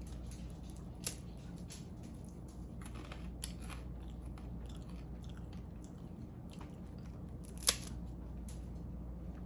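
Faint rustling and a few sharp clicks, the loudest about three-quarters of the way through, from a crisp rice cake and its plastic packaging being handled, over a low steady hum.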